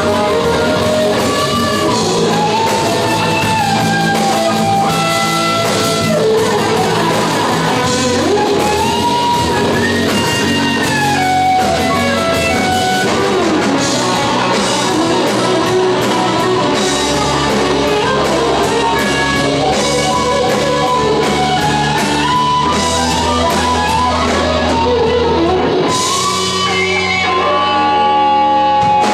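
Hard rock played live by a band: electric guitar, bass and drum kit, with a lead melody sliding between notes over a steady low end.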